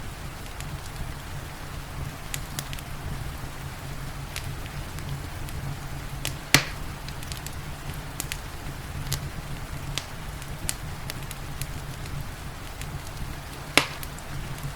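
Wood fire crackling, with scattered sharp snaps and two louder pops, one about halfway through and one near the end, over a steady hiss of rain.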